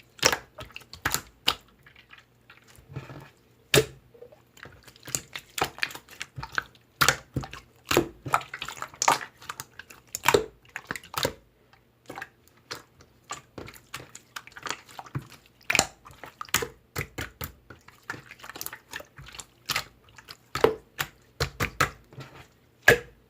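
Slime being squished, poked and stretched by hand, making an irregular run of wet clicks, pops and squelches.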